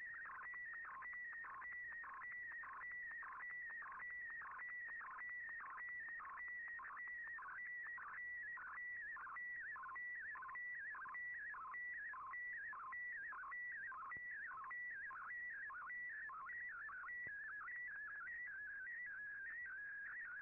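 Shortwave digital picture transmission in fldigi's MFSK image mode, heard through an Icom IC-R8600 receiver. A warbling whistle near 2 kHz swoops down to about 1 kHz roughly twice a second in a steady repeating pattern as the colour image is sent. Near the end the swoops become shallower and wavier.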